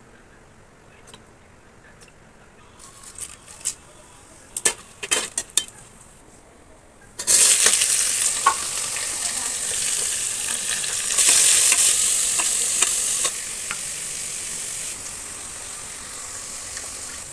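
A few light clicks of utensils, then sliced onions tipped into hot oil in an aluminium pressure cooker start sizzling suddenly and loudly about seven seconds in, the sizzle slowly dying down.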